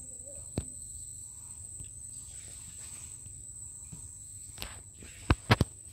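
Steady high-pitched buzz of insects in the mangrove canopy. There is a single click about half a second in and a quick run of three loud, sharp knocks near the end.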